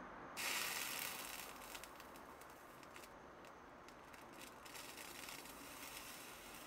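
Faint crackling hiss of solder flux sizzling as wire solder melts on a hot soldering iron tip at an alligator clip's wire joint. It comes in suddenly about half a second in, is loudest for the next second, then carries on lower with scattered small crackles.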